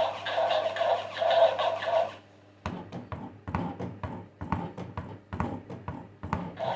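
A steady sound with a low hum and repeating mid-pitched tones that stops about two seconds in. After a short pause comes a run of irregular light taps and knocks, a few each second.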